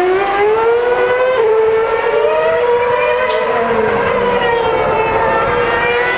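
Force India Formula One car's V8 engine running at high revs. Its high-pitched note climbs in the first second, holds fairly steady, then drops slightly near the end.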